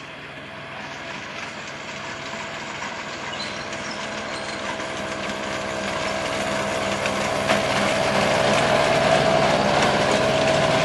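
Miniature railway train approaching and passing close by, growing steadily louder: the small diesel-outline locomotive's engine drones steadily over rattling and clicking from the wheels and carriages on the track.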